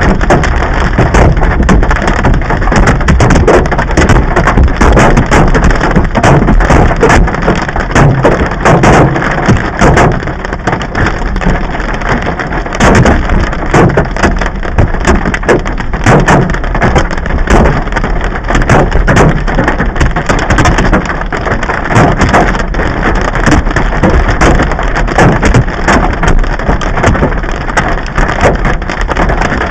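Heavy hail pounding down on hard surfaces: a loud, continuous clatter of countless impacts, with sharper individual hits standing out all through it.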